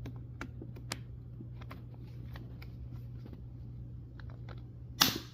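Small clicks and light rattles of a plastic fan grille being handled around its snap-on rim, with one louder short clatter near the end, over a steady low hum.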